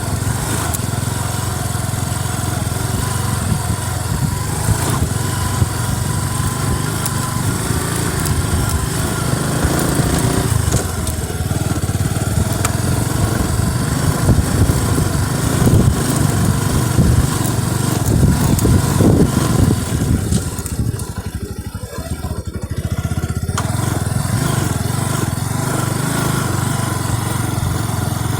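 Motorcycle engine running steadily during a ride, swelling somewhat in the middle. The sound briefly thins out, with the upper part dropping away, about three quarters of the way through.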